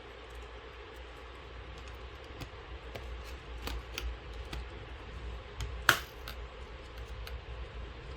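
Small scattered clicks and taps of a replacement tablet motherboard being pressed and worked into its housing, with one much louder sharp click about six seconds in.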